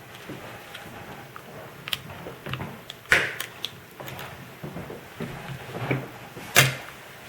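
Scattered sharp clicks and knocks of a plastic Kia Optima door handle and hand tools being handled while the handle is taken apart. The loudest knock comes about six and a half seconds in, with another strong one about three seconds in.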